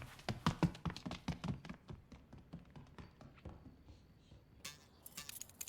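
Cartoon sound effects: a quick, uneven run of light taps and knocks that thins out about halfway through, then a short burst of hissing noise near the end.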